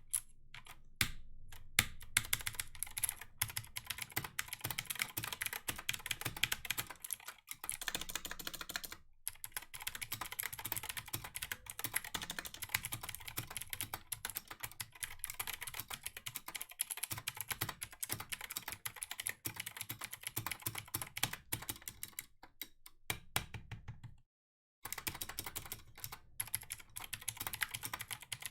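Typing on a Clix keyboard: a fast, continuous run of key clicks, with a short break near the end.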